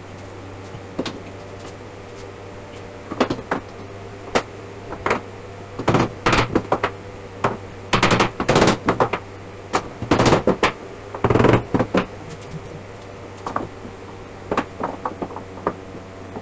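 Hammer striking wood as shelf pieces are fastened together: scattered single knocks, then runs of quick strikes in the middle, over a steady low hum.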